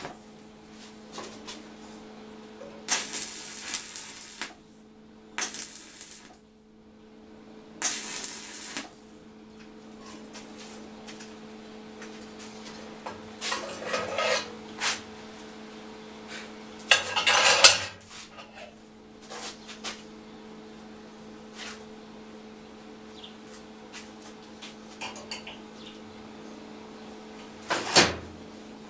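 Stick-welding arc crackling in four short bursts, about a second each, as steel rings are welded together. After that, steel pieces clink and clatter as they are handled on the steel bench, with a sharp metal knock near the end.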